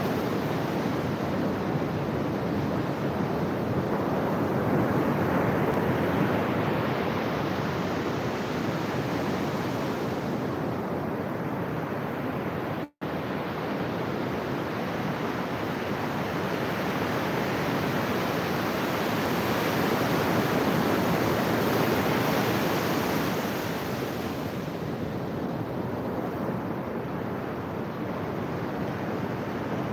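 Ocean surf breaking on a beach: a continuous rushing wash of waves that swells louder twice, with the sound cutting out for an instant about 13 seconds in.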